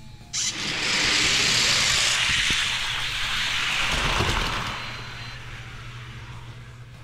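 A sharp clack as the spring starting gate drops, then the loud rushing rumble of six die-cast toy cars' wheels rolling fast down an orange plastic race track, with a couple of knocks. The sound fades away after about four and a half seconds as the cars reach the bottom.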